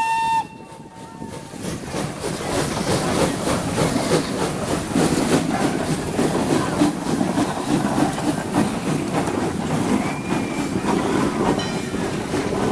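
A steam whistle cuts off right at the start, then a steam train passes close by: the locomotive working and the coach wheels clacking over the rail joints. The sound builds over the first two seconds and stays dense with clicks, with a brief faint wheel squeal about ten seconds in.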